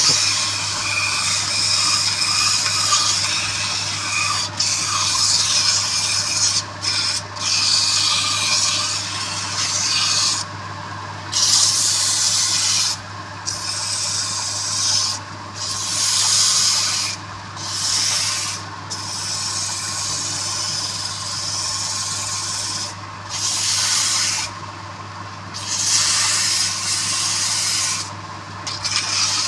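Electric power tool abrading wood: a steady motor hum under a loud rasping hiss that breaks off briefly and resumes every second or two as the tool is lifted and pressed back onto the wood.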